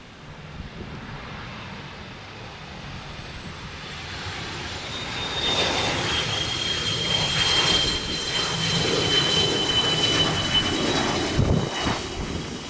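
Hawker 4000 Horizon business jet's twin turbofan engines on landing, a steady roar growing louder about halfway through, with a high whine that falls slightly in pitch as the jet passes.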